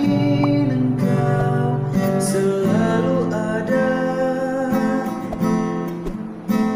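Acoustic guitar being strummed while a man sings a slow Malay-language love song.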